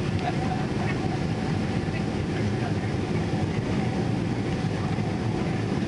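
Steady low rumble of a Boeing 777 heard from inside the passenger cabin during landing: engine and airflow noise, even in level, with no distinct thumps or changes.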